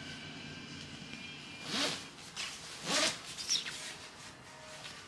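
Zipper on a quilted puffer jacket being pulled in two quick strokes, about two and three seconds in, each with a brief rising-and-falling zip, then a short extra tug.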